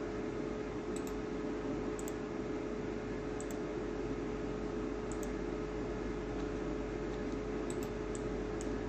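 Steady background hiss and hum with a steady low tone, and a few faint computer-mouse clicks at irregular intervals as spline vertices are selected and moved.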